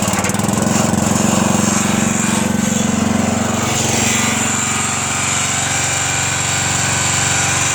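Engine of a late-1970s Rosco one-ton roller running steadily as the hydraulically driven roller moves, with a loose part rattling.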